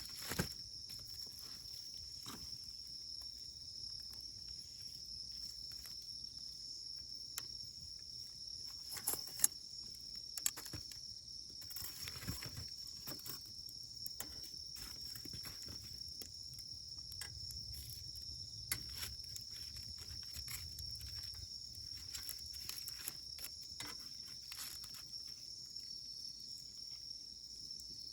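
Campfire firewood burning with scattered, irregular crackles and sharp pops; the loudest pops come about nine to ten seconds in. A steady, high-pitched insect chirring runs underneath throughout.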